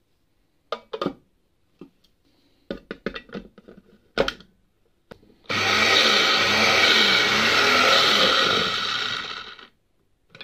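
Electric mini chopper with a glass bowl blitzing red peppers into a puree: a loud, steady motor-and-blade noise starting about halfway through, running about four seconds, then winding down. Before it come a few knocks and clinks as the blade and motor top are fitted onto the glass bowl.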